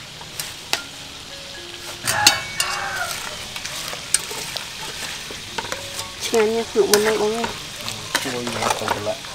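A metal ladle stirs leaves into a pot of boiling broth, with wet stirring and scattered clinks of metal on the aluminium pot. A louder clatter comes about two seconds in. A short wavering pitched sound rises above the stirring for about a second two-thirds of the way through.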